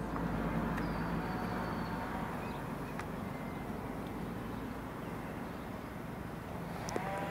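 Steady outdoor background noise with a low rumble, broken by a few faint ticks and brief faint chirps.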